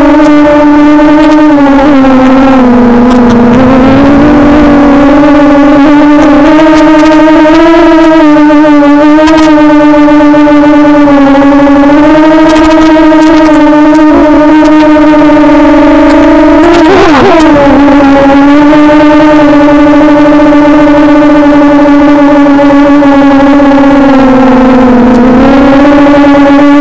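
A 250-size FPV quadcopter's brushless motors whining loudly in flight, a steady pitched tone that sags and rises with the throttle. The pitch dips about three seconds in and again near the end, and swings sharply up and down about two-thirds of the way through.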